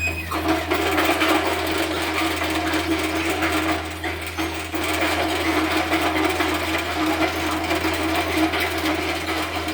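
Takeuchi TB153 compact excavator working, its diesel engine running under load with a steady low drone. A louder working noise comes in sharply just after the start and holds steady.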